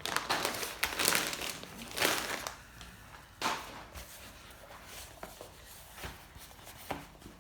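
Plastic packaging of a trim removal tool kit being handled and opened: crinkling with quick clicks for the first couple of seconds, one sharp click about three and a half seconds in, then fainter scattered clicks.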